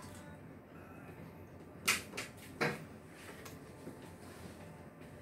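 Quiet room tone with two brief knocks about two seconds in, less than a second apart.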